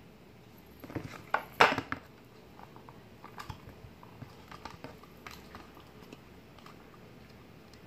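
Hard plastic clicking and clattering as a phone in an OtterBox case is handled against its plastic belt-clip holster. A cluster of sharp knocks comes about a second in, the loudest near the middle of that cluster, followed by lighter scattered clicks.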